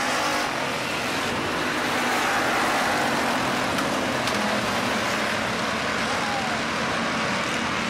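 Hobby stock race cars' engines running at speed together in a pack, a steady, dense engine noise without breaks.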